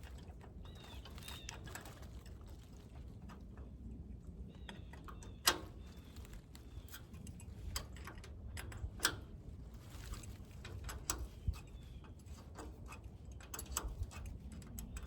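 Scattered sharp metal clicks and clinks of a wrench and hitch parts being handled on a tractor's three-point hitch. The loudest click comes about five and a half seconds in.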